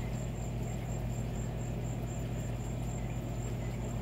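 An insect chirping a high, thin pulse about three times a second, over a steady low hum.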